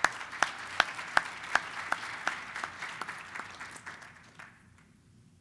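Audience applauding, with one person's claps close to the microphone standing out at nearly three a second. The applause dies away about four and a half seconds in.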